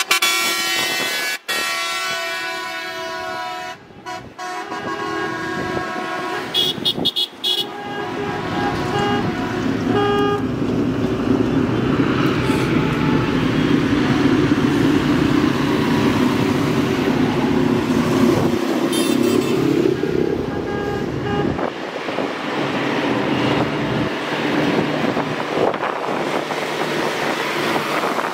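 Vehicle horns sounding, first one long blast, then several short toots. In the middle a vehicle's engine passes close and loud, with more toots over it.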